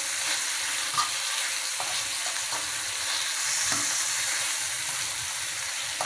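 Slices of marinated beef sizzling in hot oil in a frying pan, a steady hiss with a few short clicks as a fork taps and scrapes against the pan while turning the meat.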